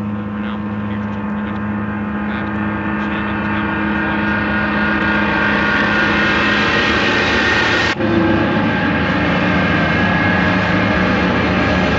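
Experimental horror film score played in reverse: a dense drone of many sustained tones swelling steadily louder, breaking off abruptly about eight seconds in, then carrying on as a similar drone.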